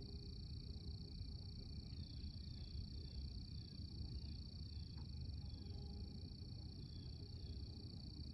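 Faint outdoor ambience. A steady high-pitched drone runs throughout, and from about two seconds in a series of short falling chirps repeats roughly twice a second, over a low rumble.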